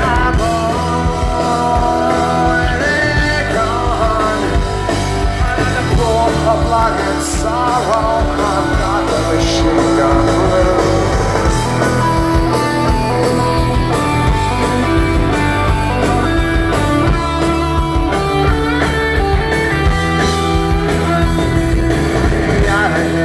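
Punk rock band playing live: electric guitars over bass and drums in an instrumental stretch between sung verses.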